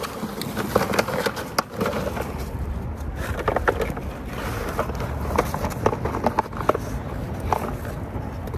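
A wet cast net is shaken out over a bucket, giving irregular clicks, knocks and rustling as the net and its weighted edge hit the bucket and concrete and the shad drop in. A low wind rumble on the microphone runs underneath.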